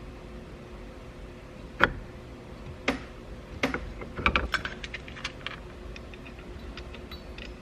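Irregular metal clicks and clinks of hardware and hand tools while a steering-wheel adapter hub is fitted onto the steering column, a few sharp knocks followed by a quick cluster and lighter ticks.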